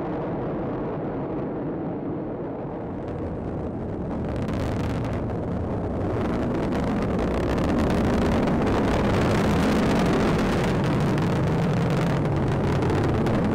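Atlas V rocket's RD-180 main engine and two solid rocket boosters firing during ascent: a steady, deep, noisy rumble that grows louder and starts to crackle about four seconds in.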